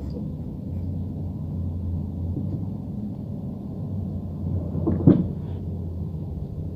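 Handling noise around a metal halogen floodlight housing: a steady low rumble, with one sharp knock a little after five seconds in.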